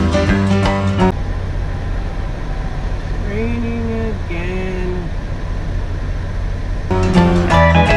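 Music stops about a second in, leaving a semi-truck's diesel engine idling with a steady low rumble, heard inside the cab; a voice sounds twice in the middle, and music comes back near the end.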